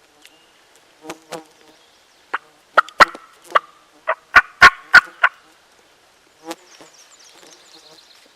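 Loud, sharp turkey hen calls, about a dozen irregular clucks and cuts packed into four seconds, then one more a second later, made close at hand on a turkey call to draw in a gobbler. Flies buzz faintly near the end.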